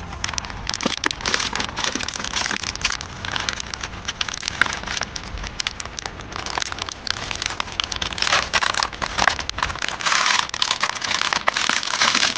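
Crinkling and crackling of plastic packaging and an aluminium-foil udon pot being handled, a dense run of small clicks that grows busier near the end.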